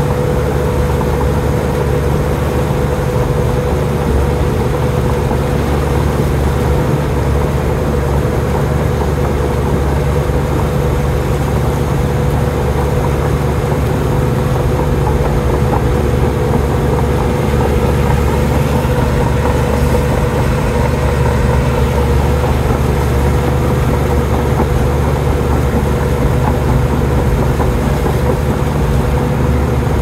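Komatsu D53P crawler bulldozer's diesel engine running steadily, a low engine note with a steady whine over it.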